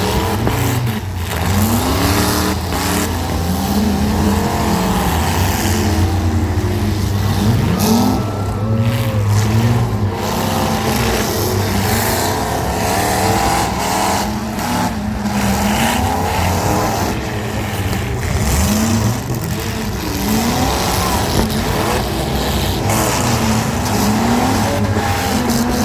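Several small demolition-derby cars' engines revving up and down over one another, with repeated crunching impacts as the cars ram each other.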